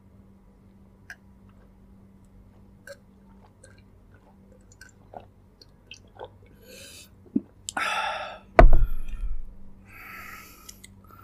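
Close-miked chewing and wet mouth clicks of someone eating braised pork leg. About eight seconds in there is a louder rushing sound, then a single heavy thump, and a softer rush follows near the end.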